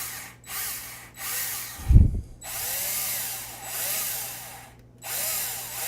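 Power drill with a 3.5 mm bit boring into an iPhone 7, running in several runs of a second or two each with short pauses between them. There is a low thump about two seconds in.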